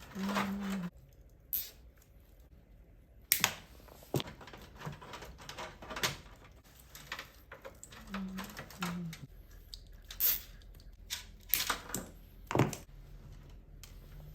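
Irregular clicks and knocks of computer hardware being handled and fitted together during assembly, the sharpest a few seconds in and several close together near the end.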